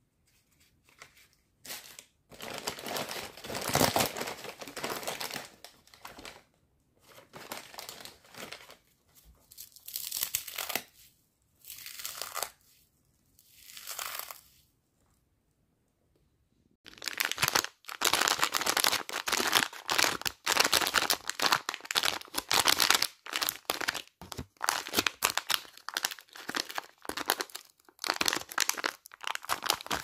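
Plastic snack packets crinkling and corn sticks crunching as they are crushed between the fingers, in short bursts with pauses. After about two seconds of silence, a foil candy wrapper crinkles densely and continuously.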